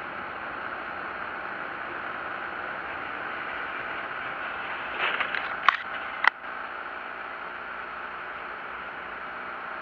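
Steady hiss of road and tyre noise inside a car driving on a wet road, as picked up by a dashcam, with a brief scraping rustle about five seconds in and two sharp clicks just after it.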